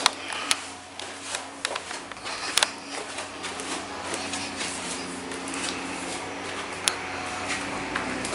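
Handheld camera being carried through a house: scattered sharp clicks and rustling handling noise, with a faint low steady hum underneath.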